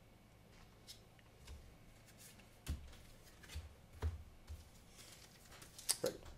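Faint handling of Pokémon trading cards: a few soft, scattered taps and rustles as cards are shuffled and set down.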